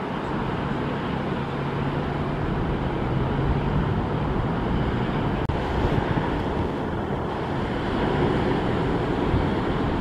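Steady outdoor noise of wind on the microphone and ocean surf, with a low steady hum through the first few seconds and a momentary dropout about five and a half seconds in.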